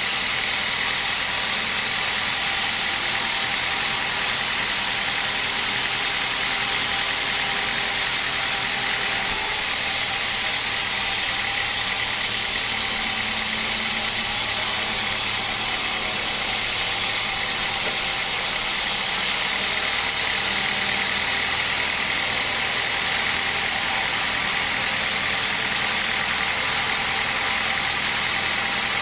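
Band sawmill running steadily, its blade cutting lengthwise through a teak log, a loud even machine noise with no pauses.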